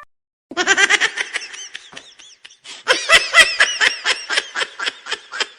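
A laughter sound effect: rapid, high-pitched bursts of laughing that start about half a second in, come in two bouts, and are louder in the second.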